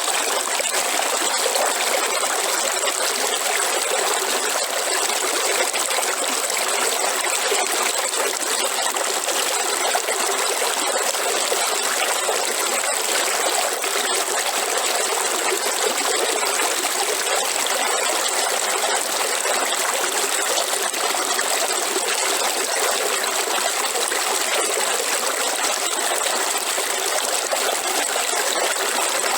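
River water flowing, a steady, unbroken rush and trickle of running water.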